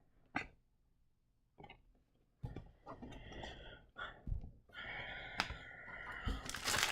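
Soft handling of trading cards and foil packs: a few light taps, then irregular rustling and sliding from a few seconds in, growing busier near the end as a wrapper starts to crinkle.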